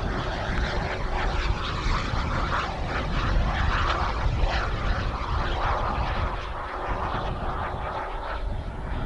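Kingtech K-160 G2 model jet turbine of a TopRC Aspire RC jet in flight, a continuous rushing jet roar that swells about three to five seconds in as the plane passes and eases off after.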